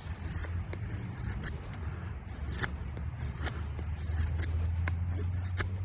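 Victorinox Venture knife (14C28N steel) cutting or scraping wood in a series of short, irregular strokes, over a steady low hum.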